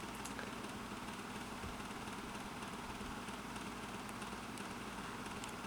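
Kuo Horng KH-203 12-inch table fan running on low speed: a steady motor hum under the even rush of air from the blades. The motor is warming up, which makes it run quieter.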